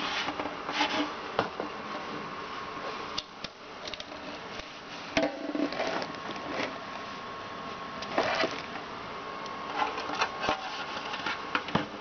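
Plastic parts of a Crane cool-mist humidifier being handled: scattered clicks, knocks and brief rustles of the base and tank being moved, over a steady background hum.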